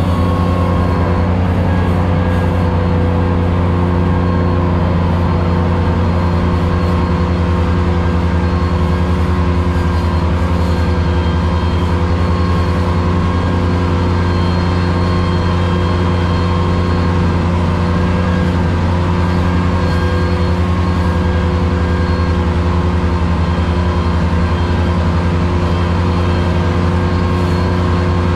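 Ventrac 4500Z compact tractor running steadily under load with its 72-inch finish mower cutting tall grass, heard from inside the cab as a steady drone.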